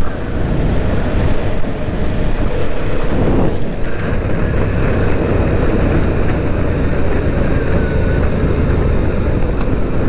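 Motorcycle engine running steadily under way, mixed with wind rushing over the rider's camera microphone. About three and a half seconds in, the engine note dips briefly and comes back up.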